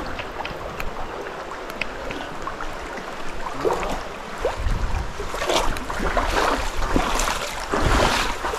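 River water swishing and splashing as someone wades through it, the splashes growing busier about halfway through, with wind buffeting the microphone.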